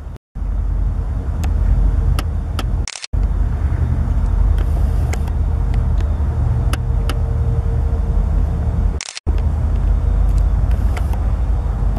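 Canadian National diesel locomotive hauling a container train toward the listener: a heavy, steady low rumble with scattered sharp clicks over it. The sound cuts out for an instant three times, near the start, about three seconds in and about nine seconds in.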